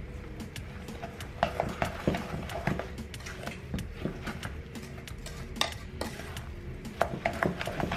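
Metal spoon stirring spices into a wet puree of vegetables in a stainless steel bowl: irregular clinks and scrapes of the spoon against the bowl, over background music.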